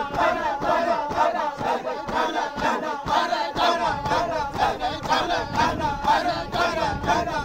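A group of people chanting together while dancing in a line, many voices singing a repeated call in a steady rhythm.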